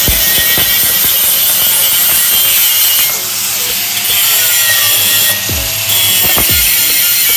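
Small angle grinder with its disc grinding into the weld of a steel pipe, a steady harsh hiss, cutting out a root concavity (suck-back) defect in the back bead for repair. The grinding lets up briefly twice as the disc is eased off the metal.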